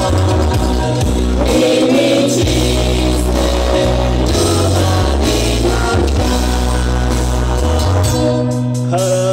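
Live band music through a stage PA, with a woman singing into a microphone over loud bass notes that step from note to note.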